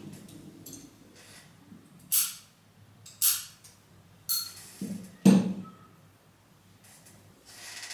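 Scissors snipping asparagus fern stems under water in a glass bowl, three short cuts about a second apart, then a louder knock as the scissors are set down on the table, and a soft rustle near the end.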